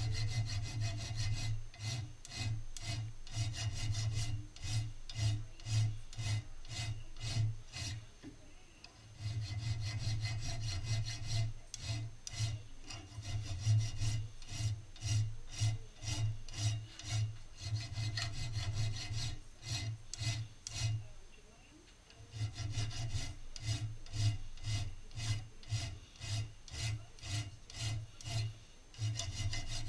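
Long flat hand file stroked back and forth along the steel top rib of side-by-side shotgun barrels, rasping at a steady rhythm of about two strokes a second. It stops briefly twice: once about a third of the way in, and again about two thirds in.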